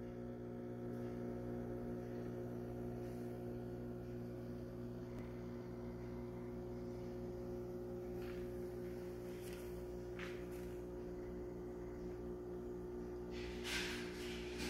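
Steady electric hum of a reef aquarium's pumps, made of several low tones held level. A few brief soft noises come over it, the loudest near the end.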